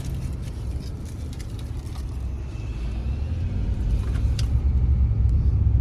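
Low road and engine rumble inside a moving car's cabin, growing louder over the last couple of seconds.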